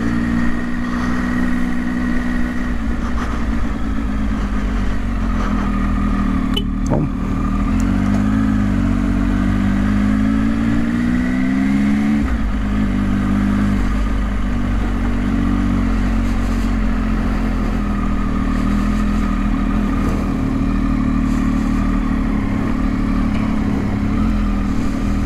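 Triumph motorcycle engine running at low road speed, heard from the rider's seat; its note climbs with the throttle for a few seconds near the middle, then drops back.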